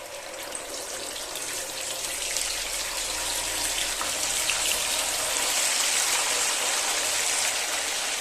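Marinated chicken pieces going one by one into hot coconut oil in a pan, sizzling and crackling. The sizzle builds steadily louder as more pieces go in.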